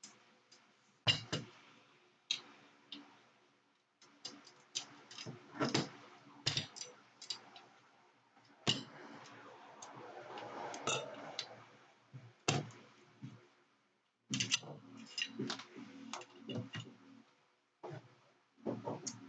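Metal rifle parts clicking, knocking and clinking as the Marlin 60's barrel and magazine tube are handled and small parts are set down on a work table. There is a stretch of rubbing, sliding noise around the middle.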